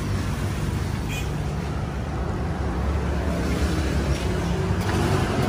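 An engine running steadily at idle, a continuous low rumble.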